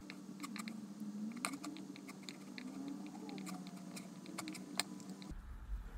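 Light, irregular clicks of a computer keyboard and mouse, a few a second, over a faint steady hum.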